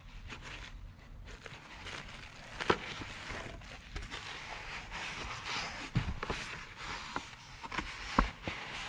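Paper and plastic packaging rustling as a cardboard box is unpacked by hand, with several sharp taps and knocks.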